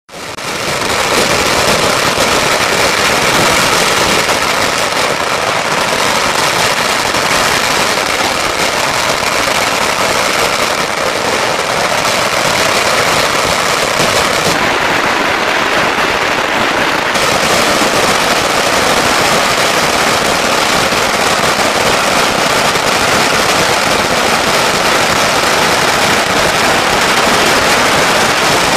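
Long strings of firecrackers going off in a continuous, dense crackle of rapid bangs that never lets up.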